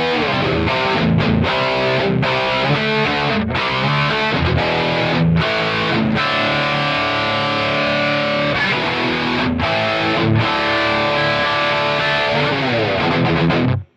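Electric guitar, the Solar V1.6C, played with heavy distortion. It plays a choppy riff with short stops, then a held chord, then a downward slide, and breaks off suddenly at the end.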